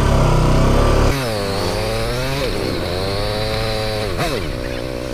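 KTM RC 200 motorcycle's single-cylinder engine under way, loud and revving hard for about the first second. Its note then drops, climbs again, drops once more about two and a half seconds in and climbs again, before falling off near the end.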